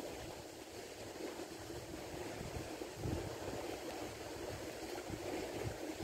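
Steady wash of sea waves on a beach, with wind rumbling unevenly in the microphone. A single brief click right at the start.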